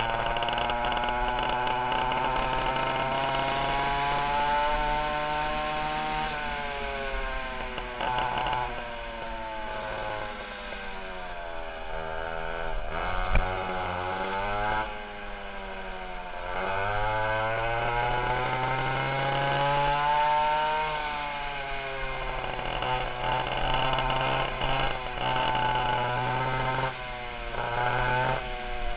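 Twin 820 two-stroke chainsaw engines of a 1960 Fox go-kart running hard, their pitch climbing and falling as the kart accelerates and slows. About halfway through, the revs drop away, then climb again.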